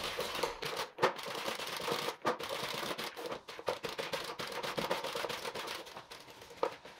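Paint roller rolled back and forth through paint over the ribbed grid of a plastic paint tray, making a rapid sticky crackling. The nap is being soaked so the paint works into it all the way through.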